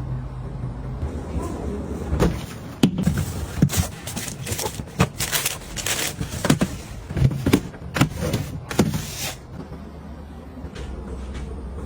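A quick, irregular series of clicks, knocks and rattles as household items are handled and set down, over a steady low hum; the knocking thins out after about nine seconds.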